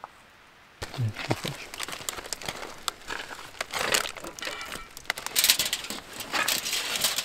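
Packaging crinkling and rustling as it is handled, starting about a second in and going on in uneven crackly bursts.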